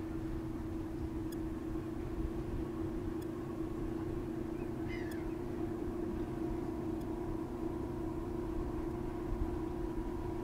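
Steady low drone of a tug's diesel engine pushing a barge along the river, a constant hum over a rumble. A short bird call cuts through about five seconds in.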